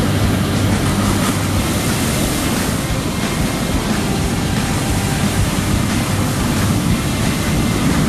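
Heavy surf: big waves breaking and churning, a loud steady wash with a deep rumble underneath.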